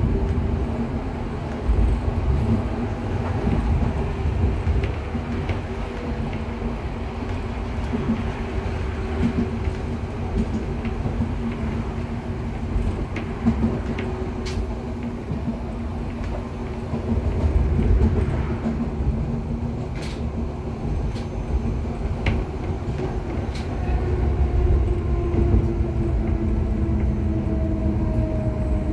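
Budapest H5 HÉV suburban electric train heard from inside a passenger carriage while running: a steady low rumble of wheels on track with a constant hum and a few sharp clicks. Near the end the hum falls in pitch.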